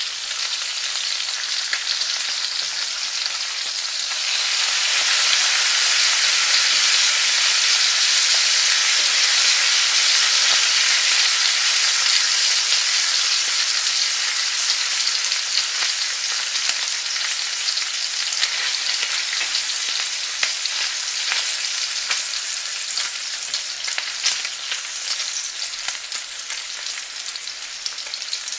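Food frying in a pan, a steady sizzling hiss full of small crackles and pops. It grows louder about four seconds in, then slowly eases, with separate pops standing out more near the end.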